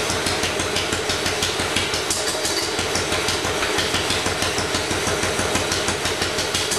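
Restored 1946 Wisconsin model AHH single-cylinder engine running steadily, with a fast, even firing beat.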